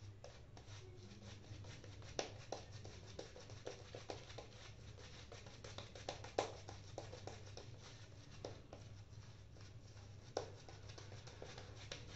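Shaving brush working lather over the cheeks and neck: faint, irregular bristle swishing with scattered small clicks, over a low steady hum.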